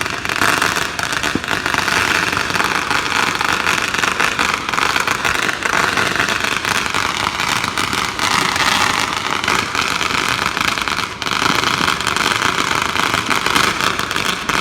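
Firecrackers going off in a continuous dense barrage, many sharp cracks and bangs overlapping with no break.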